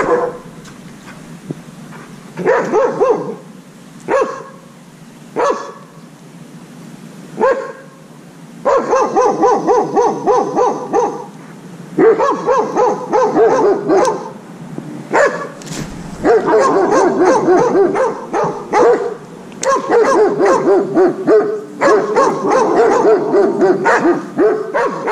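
Ducks quacking: a few separate quacks at first, then an almost unbroken run of quacks through the second half.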